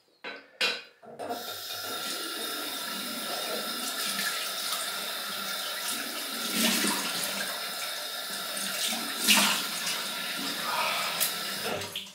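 Tap running steadily into a bathroom sink, starting about a second in after a couple of light knocks, with two louder splashes partway through.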